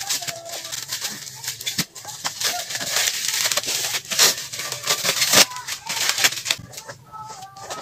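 Plastic parcel wrapping crinkling and rustling as it is torn open and a cardboard box is pulled out of the bag, a quick run of crackles with scrapes of the box.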